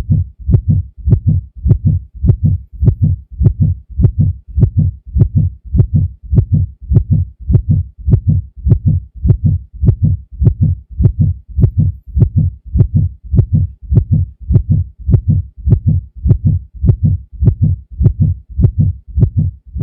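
Heartbeat sound effect: a steady, even lub-dub rhythm of paired low thumps, one beat after another.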